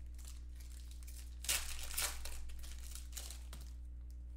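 Crinkling and rustling of a trading-card pack and cards being handled, in a few short bursts, the loudest about a second and a half to two seconds in, over a steady low electrical hum.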